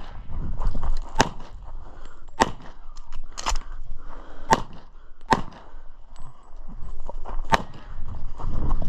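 A string of handgun shots, one every second or so, fired during a USPSA stage: about half a dozen sharp cracks with a few fainter ones between them.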